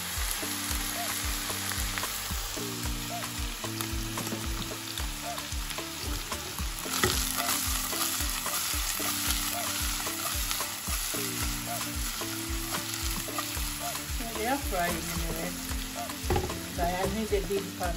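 Dried lotia fish frying in hot oil in a saucepan, with a steady sizzle and the pieces being tossed in the pan. Background Afrobeat music with a steady beat plays underneath.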